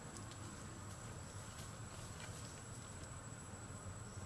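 Quiet forest background: a steady, thin, high-pitched whine over a low rumble, with a few faint clicks.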